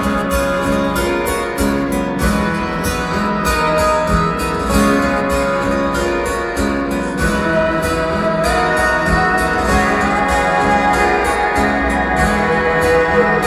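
Live concert music led by guitar, with a steady beat and sustained held notes throughout.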